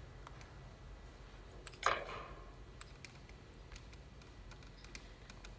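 Quiet room tone with a low hum and scattered faint clicks, and one short clatter about two seconds in.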